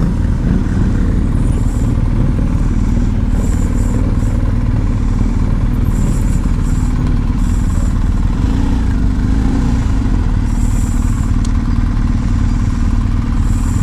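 Motorcycle engine running, with a steady low rumble.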